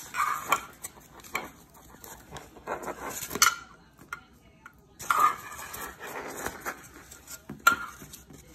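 Kitchen handling sounds as raw cinnamon rolls are pulled from an opened cardboard dough tube and set into a glass baking dish. Irregular scrapes and rustles are broken by several sharp taps, the loudest about three and a half seconds in, five seconds in, and near the end.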